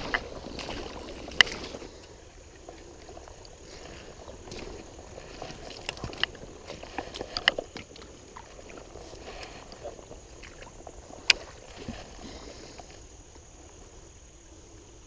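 River water sloshing and splashing around a wader's legs, then settling to a quieter flow with scattered light clicks and ticks, one sharper click about eleven seconds in.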